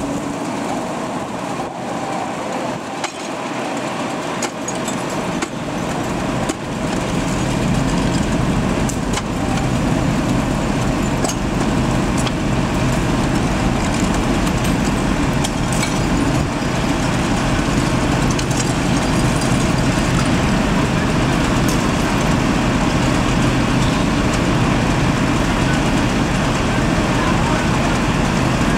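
Fire truck's diesel engine running steadily under load at a fire scene. It grows louder about six seconds in, then holds.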